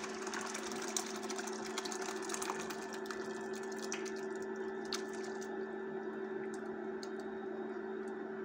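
Boiled masoor dal poured from a steel pot into a pan of hot masala, the liquid splashing and bubbling in, easing off about halfway through. Under it runs the steady hum of a Prestige induction cooktop.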